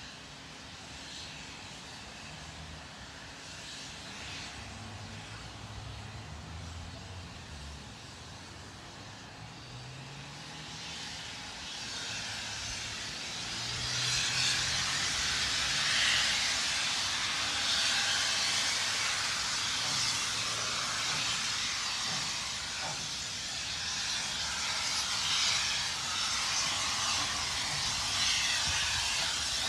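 Steam hissing from K class steam locomotive K153, faint at first and swelling about twelve seconds in to a loud, steady hiss.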